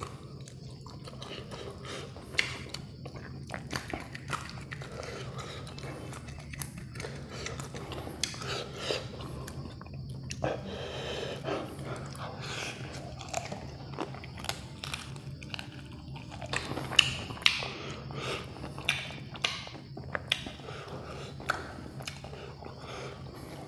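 Close-up chewing and crunching of KFC fried chicken wings, with irregular sharp crunches and mouth noises throughout. A steady low hum runs underneath.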